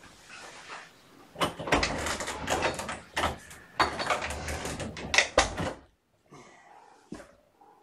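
Loud rustling and scrabbling of fabric, mixed with many sharp clicks and knocks. It starts about a second and a half in and stops abruptly about two seconds before the end, with a single sharp click near the end.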